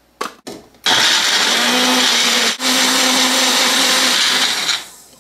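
Bullet-style personal blender pureeing chopped tomatoes, ginger and green chili. A couple of clicks as the cup is set on the base, then the motor runs for about four seconds with a brief break in the middle, and winds down near the end.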